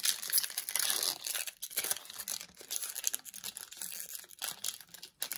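Foil Pokémon booster pack wrapper crinkling and tearing as it is pulled open, a run of crackles with sharp snaps; the pack is tough to open.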